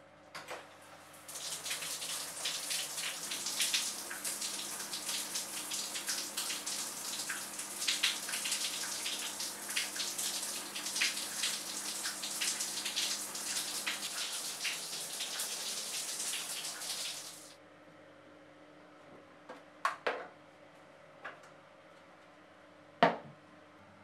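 Shower running: water spraying from a handheld shower head, which comes on about a second in and cuts off suddenly about sixteen seconds later. Then a few light knocks follow, the sharpest near the end.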